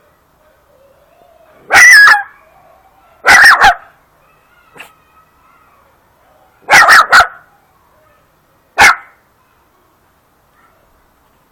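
German hunting terrier (Jagdterrier) puppy barking loudly in short, sharp yaps, about seven barks in four quick bunches: one, then two, then three, then one.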